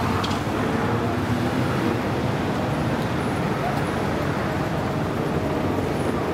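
Steady city street ambience, mostly road traffic noise.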